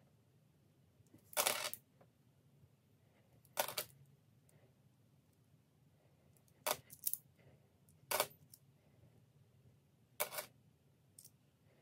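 Australian $1 coins clinking as they are handled and set down one or two at a time: about six short clinks a second or two apart, a couple of them in quick pairs.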